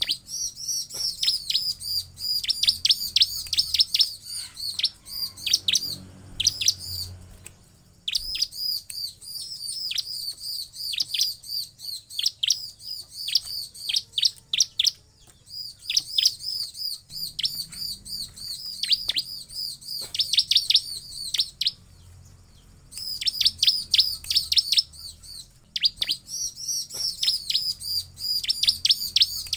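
Bar-winged prinia (ciblek) calling: fast runs of sharp, high chirps, several a second, in bursts of a few seconds with short pauses between them.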